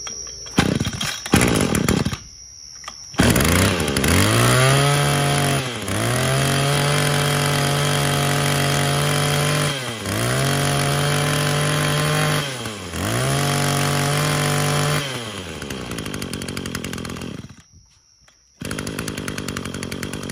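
Small two-stroke engine of a Maruyama 26cc brush cutter starting after a couple of pulls of the recoil starter. It is revved up to high speed and held, dropped back and revved up again twice, then settles to idle and cuts out. A rougher burst of noise follows near the end.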